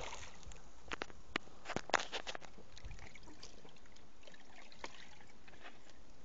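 Water splashing as a hooked pike thrashes at the surface beside a small boat, with a few sharp slaps or knocks about one to two seconds in, then only faint water sound.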